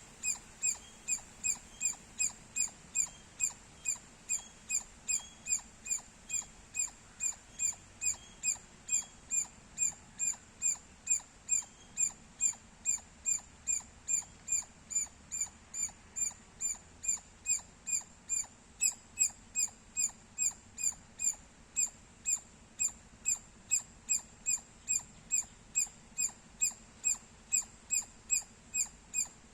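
A squirrel chirping: short, high-pitched chirps repeated at an even pace, about two a second.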